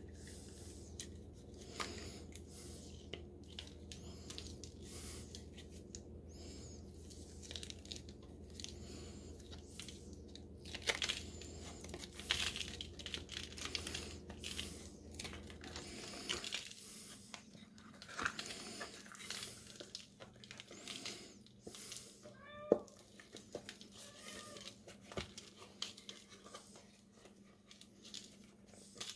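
Hands flexing and peeling a flexible silicone mould off a cured Cement All concrete casting: irregular rubbery rustling, scraping and crinkling, with a short squeak and one sharp snap about two-thirds of the way through. A low background hum cuts out a little past halfway.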